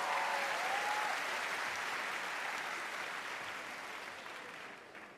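Studio audience applauding, with a few voices calling out at the start; the clapping dies away near the end.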